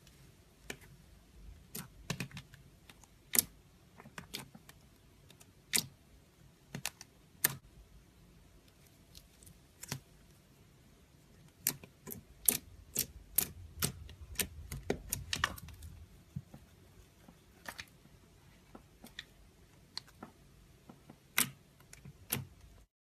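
Slime being squeezed and poked by hand, making sharp, irregular clicks and pops, some in quick runs. The sound cuts off just before the end.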